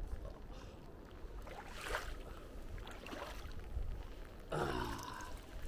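Hands digging and sloshing in shallow muddy seawater while grubbing for a mud crab, with a couple of short splashes about two and three seconds in, over a steady low rumble. A man's short exclamation near the end.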